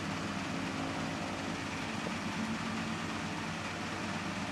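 Steady background hum and hiss at an even level, with no distinct events.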